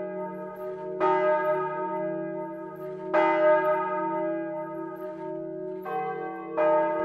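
Bells tolling, struck about five times at uneven intervals, each stroke ringing on and slowly fading over a steady low drone.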